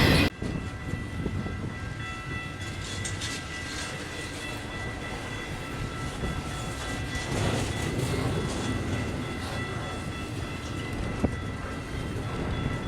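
A long intermodal stack train's cars rolling past on the rails: a steady rumble with light wheel clatter and a thin, steady high whine.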